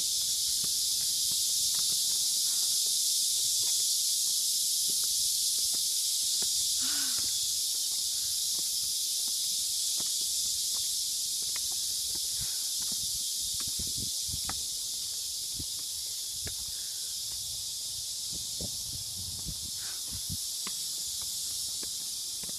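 A steady, high-pitched insect chorus droning from the trees, a cicada-like hiss. In the second half there are soft footsteps on stone steps.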